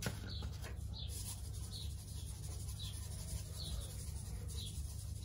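Light, repeated shakes of a pepper shaker over a bowl of egg batter, about two faint scratchy ticks a second, over a low steady hum.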